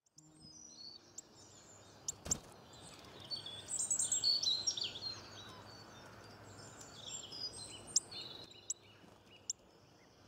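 Several small birds chirping and trilling over a faint steady hiss, busiest about four to five seconds in, with a few sharp clicks scattered through.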